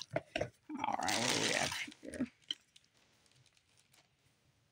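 A couple of light clicks, then about a second and a half of thin plastic bag crinkling as the lamp base is pulled out of it.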